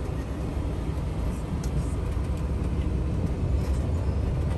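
Cabin noise of a Ram Promaster van driving at low speed: a steady low rumble of engine and road.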